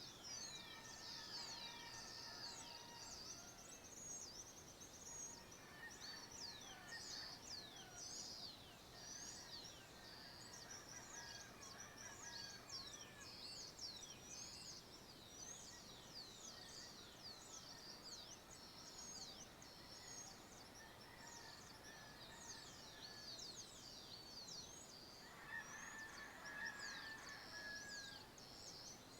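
Faint dawn chorus of many small birds, with rapid high chirps and trills overlapping throughout. A louder, lower bird call stands out for about a second and a half near the end.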